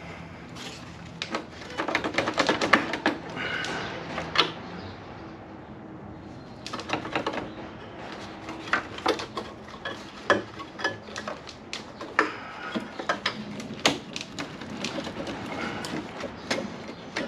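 Irregular clicks, knocks and clatter of hand tools and sheet metal being handled during bodywork, with a few short noisy scraping stretches.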